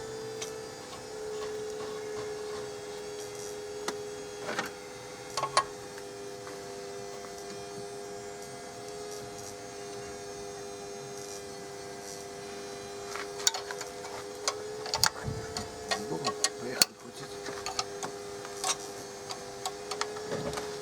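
A steady hum runs throughout, with scattered metallic clicks and knocks of hand tools on the engine, a few about a quarter of the way in and more frequent over the last third.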